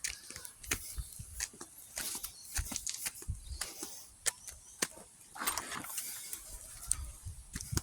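Footsteps on an outdoor walking track, about two a second, with low rumble on the microphone.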